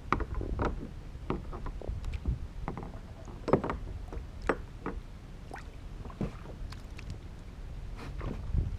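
Water splashing and knocking around a fishing kayak: irregular short splashes and knocks, several a second at times, over a steady low rumble.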